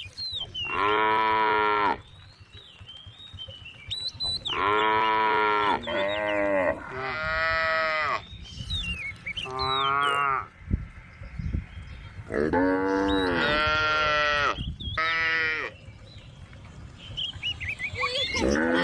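Cows mooing again and again: about eight long, loud calls one after another, each lasting about a second, with short high chirps in the gaps between them.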